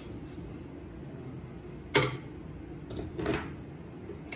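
Metal bar clamps being loosened from a glued-up hardwood panel: one sharp clack about two seconds in, then a small click and a short scraping rattle a second later as the panel is lifted off the bench.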